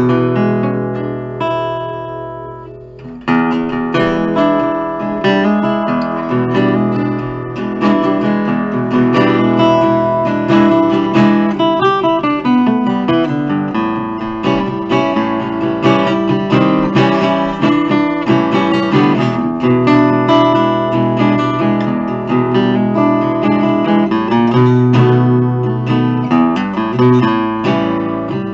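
1970 Guild Artist Award hollow-body archtop guitar with a spruce top and f-holes, played acoustically, unplugged, with a pick. A chord rings out and fades over about three seconds, then continuous picked playing of chords and single notes.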